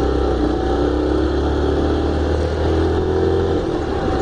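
Yamaha Factor motorcycle's single-cylinder four-stroke engine running steadily under way. The engine note dips and changes briefly about three and a half seconds in.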